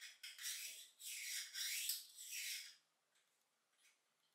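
Metal parts of a pneumatic nailer's aluminium magazine being handled: a sharp click at the start, then a few scraping, sliding rubs over about two and a half seconds.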